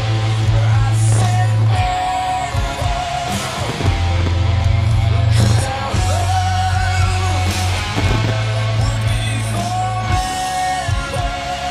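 Rock music with singing: long held vocal notes over a heavy bass that holds for a second or two at a time, then breaks off.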